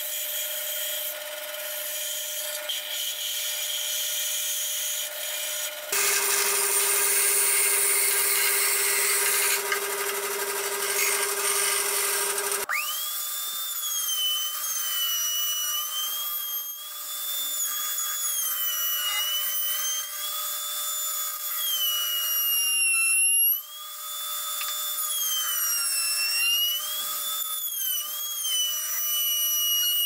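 Bandsaw running and cutting through wood, then, a little before halfway, a router table's high motor whine takes over. Its pitch dips and recovers again and again as the wood is fed along the bit.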